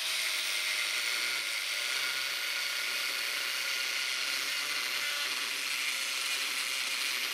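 DeWalt angle grinder with a thin cutoff disc running steadily as it cuts into a flat aluminium bar. The bar is scored deeply rather than cut all the way through, so the piece can later be bent loose.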